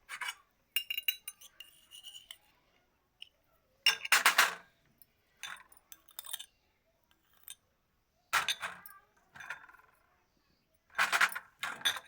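Kitchenware clinking and knocking in a string of short, separate bursts, like a spoon and small glass or metal containers being handled. A few of the clinks ring briefly, and the loudest clatters come about four seconds in and near the end.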